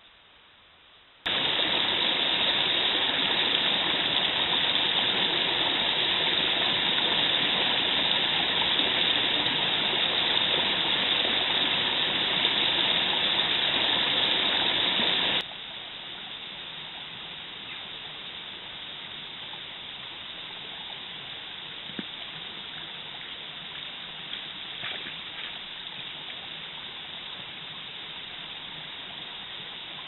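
Steady rush of running stream water picked up by a trail camera's microphone. It starts abruptly about a second in and is loud, then drops to a quieter rush about halfway through, with a few faint clicks near the end.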